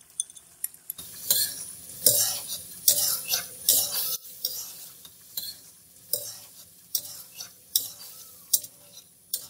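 A metal spatula stirring and scraping around a metal karahi, about one stroke a second starting about a second in, as yogurt is mixed into bubbling beef karahi gravy. The gravy sizzles faintly underneath.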